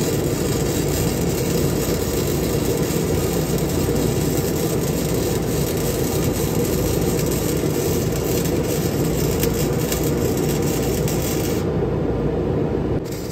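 MIG welding arc, a steady crackle, as a square-tube sister piece is welded onto a thin 16-gauge steel trailer frame; the arc stops near the end.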